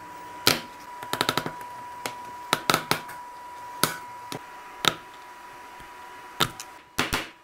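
Aviation tin snips cutting thin perforated steel mesh, each bite a sharp metallic snap, with a quick run of several snips about a second in and single snips spaced out after. Near the end a hammer starts striking the mesh on a steel plate in quick blows.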